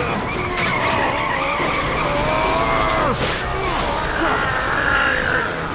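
Cartoon skid sound effect: a long screeching squeal that wavers and glides up and down in pitch, as a runaway truck with failed brakes is dragged to a stop by feet sliding on the ground.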